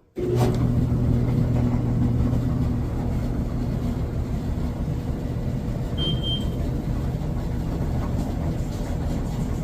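Samsung clothes dryer starting up abruptly and running with a steady loud hum and rumble from its drum. The noise comes from a bad drum roller; one of the old wheels has lost its middle piece. A brief high tone sounds about six seconds in.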